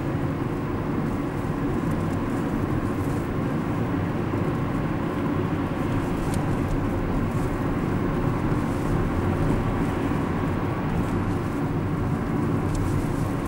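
Steady engine and road noise inside the cabin of a moving car.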